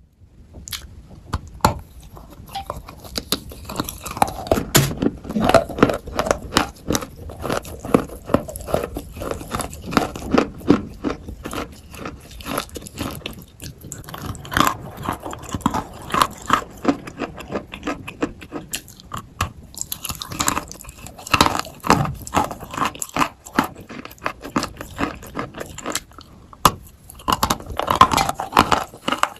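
A person biting and chewing wet white chalk: dense, irregular crunches one after another, with a few brief pauses.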